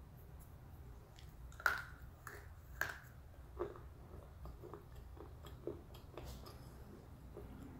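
A person biting into and chewing an Earthy Goodies thick slate pencil: a few sharp crunches, the loudest about one and a half seconds in, then softer, scattered crunching chews.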